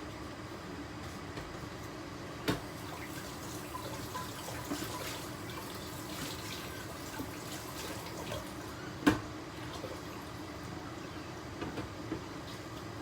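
Pot of water bubbling at a boil with seafood blanching in it, a steady churning hiss. Two sharp knocks cut through it, the louder one about nine seconds in.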